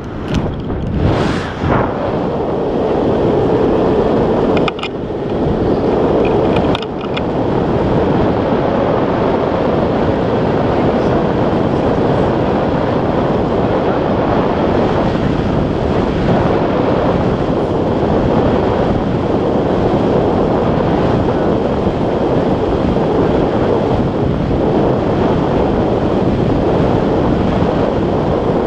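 Steady rush of wind over the camera's microphone as a tandem paraglider flies, with two brief dips about five and seven seconds in.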